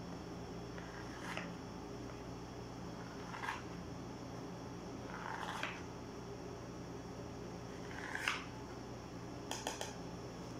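A kitchen knife cutting through basbousa in a metal baking tray, the blade giving a short scrape against the tray every couple of seconds, with a few quick clicks near the end. A steady low hum runs underneath.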